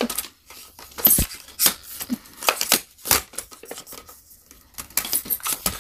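Aluminium tripod being collapsed by hand: its telescoping legs sliding in and their plastic flip locks clicking, heard as a scattered series of sharp clicks and knocks.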